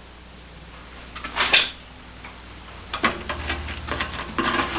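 Clanking and scraping of metal against the cast iron as a hand works inside a small wood stove through its open top, with a short metallic ring near the end.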